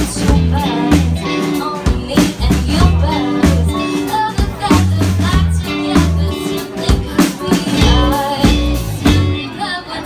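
Live band playing a song: a woman singing lead over electric guitar, electric bass, drum kit and a stage keyboard, with steady bass notes and regular drum hits.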